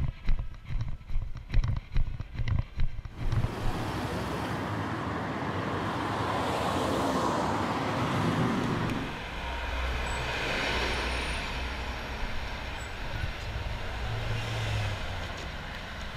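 Quick, regular footsteps on a hard floor for about three seconds. Then the steady noise of city street traffic, swelling as a vehicle passes. From about halfway on, the low rumble of a city bus engine.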